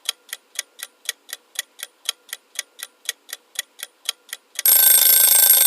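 Sound-effect countdown clock ticking steadily, about four ticks a second, then about four and a half seconds in a loud, bright time's-up ring that lasts about a second.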